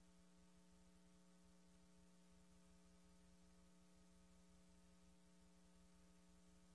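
Near silence with a faint, steady hum that does not change.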